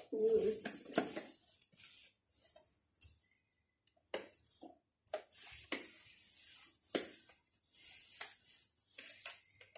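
Small paper gift packaging being handled and opened: irregular rustling and crinkling with scattered sharp crackles.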